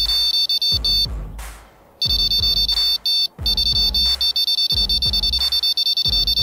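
An electronic fishing bite alarm beeping rapidly in irregular runs, stopping and starting as line is drawn through it, over repeated low thuds.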